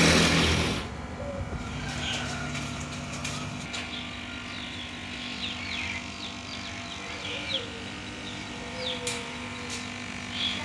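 A small engine running steadily, louder for about the first second and then settling, with birds chirping.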